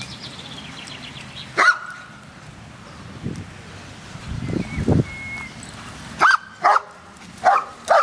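A dog barking: a single sharp bark about a second and a half in, then a quick run of short barks near the end. A low rumble comes just before the five-second mark.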